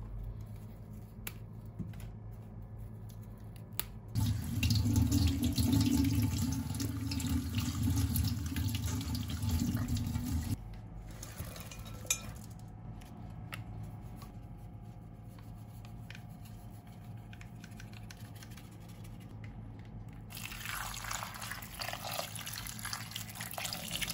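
Water running from a kitchen tap into a sink for about six seconds, then shut off abruptly; a lighter run of water comes again near the end.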